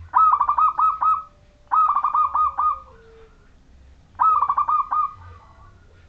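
A zebra dove (perkutut) of the local Majapahit type singing its cooing song. It gives three phrases of quick, clipped notes, each about a second long, with short pauses between them.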